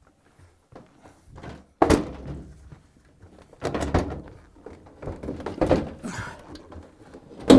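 Washer tub assembly knocking and bumping against the cabinet as it is turned and worked into place, with several separate hollow thunks. The loudest comes near the end.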